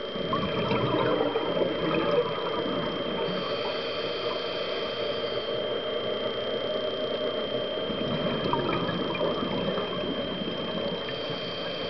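Underwater sound picked up by a diving camera in its housing: a steady rushing, crackling noise from a scuba diver's regulator bubbles and the water, with a constant thin high whine running through it. The noise swells during the first two seconds and again about eight seconds in.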